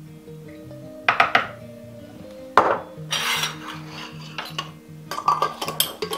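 A metal measuring spoon clinks and scrapes against a small glass jar of yeast, with a sharp knock about two and a half seconds in and a flurry of light clicks near the end as the jar is handled and set down. Soft background music plays underneath.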